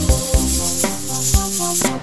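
Background music with a steady beat about twice a second under held melodic notes.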